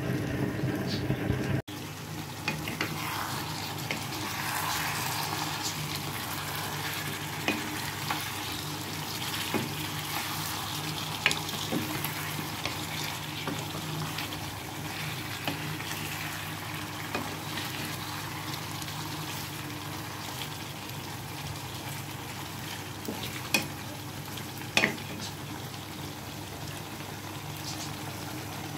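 Chicken and potato curry frying and sizzling in a pan while it is stirred, with a few sharp clinks of the spoon against the pan.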